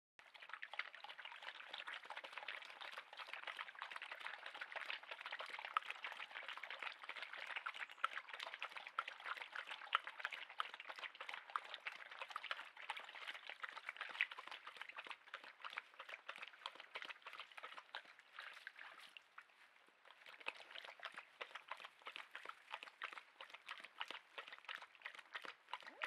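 Faint water trickling in a shallow stony stream pool: a dense, irregular run of small splashes and drips. It eases off briefly about three-quarters of the way through, then comes back.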